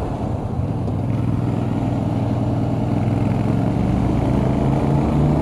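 TVS Apache RR 310's single-cylinder engine running as the bike is ridden through a bend, with road noise under it. Its pitch climbs slightly near the end as the bike picks up speed.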